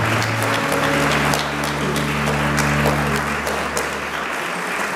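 Audience applauding, with music of low held notes underneath that fades out a little before the end.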